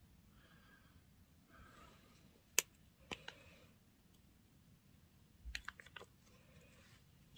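Scattered faint clicks of small hard plastic jewel parts being picked up and handled by fingers over a decorated plastic case, with a small cluster of clicks a little past five seconds in.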